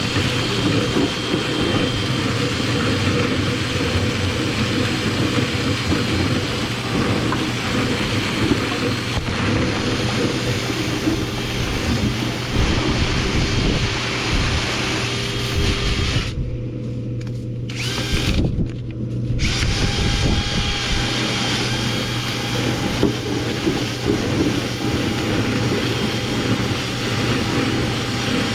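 Power drill running steadily over a constant low motor hum. Twice, about two-thirds of the way through, its higher noise drops out for about a second while the hum carries on.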